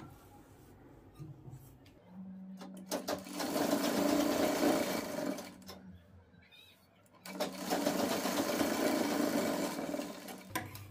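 Sewing machine running a line of basting stitches in two runs: it starts about two seconds in, stops for about a second near the middle, then runs again until just before the end.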